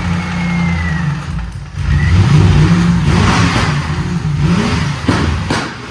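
Lincoln Mark VIII's V8 running just after its first start, being revved: the revs sag about a second and a half in, then climb again and ease off. Two sharp clicks are heard near the end.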